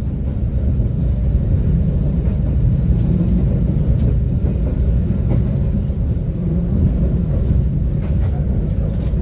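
Executive-class passenger train running at about 45 km/h, heard inside the coach: a steady low rumble of wheels on the rails, with a few faint clicks.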